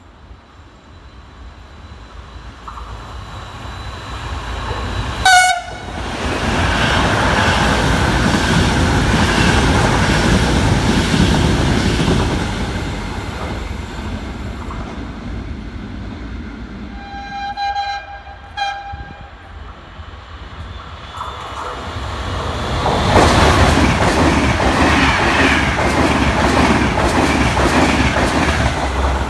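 Intercity trains passing through stations at speed. A short horn blast sounds about five seconds in, just before the first train rushes past. The horn sounds twice more around the middle. Near the end another train's coaches run close by, wheels clacking over the rail joints.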